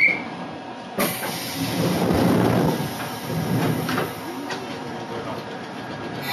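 Hakone Tozan Railway electric train standing at a station platform, with a sudden hiss of air starting about a second in and carrying on, over mechanical clatter from the train.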